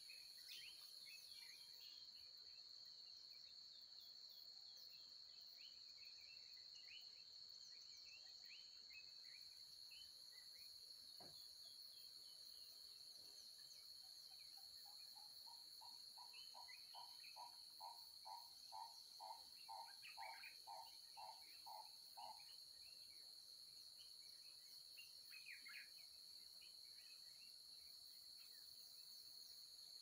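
Faint mixed birdsong: many short high chirps and whistles over a steady high-pitched insect drone. From about halfway, one bird repeats a single mid-pitched note roughly twice a second for about eight seconds.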